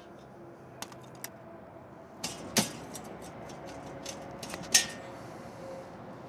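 Light metal clinks and scrapes as a Dodge Charger's stock chrome exhaust tip is wiggled loose by hand and pulled off the exhaust pipe. There are a few sharp clicks, the loudest about two and a half and nearly five seconds in.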